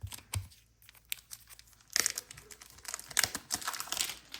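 Plastic card packaging being handled: a couple of light clicks, then about two seconds of crinkling and rustling as cards are pulled out of it.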